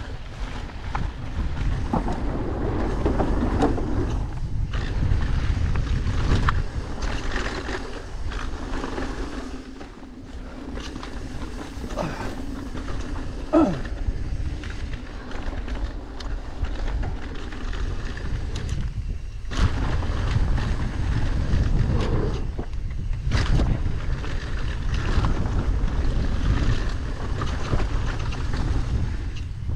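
Mountain bike descending a loose dirt downhill trail at speed: wind buffeting the action camera's microphone in a steady low rumble, with tyres crunching over dirt and stones and sharp knocks and rattles from the bike over bumps.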